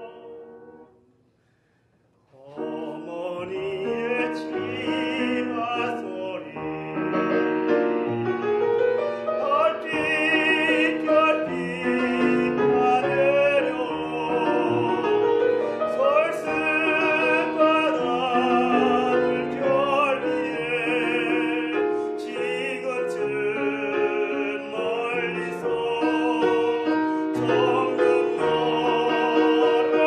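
Tenor singing a Korean art song in a full operatic voice with vibrato, accompanied on a Pramberger grand piano. After a pause of about two seconds near the start, voice and piano come back in together.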